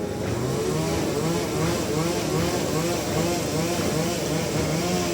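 Sawmill saw machinery running, its pitch wavering in a quick regular pulse about three times a second, then holding steady near the end.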